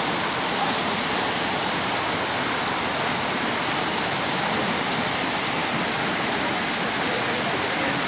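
Tiered waterfall cascading down rock ledges: a steady, even rush of falling water.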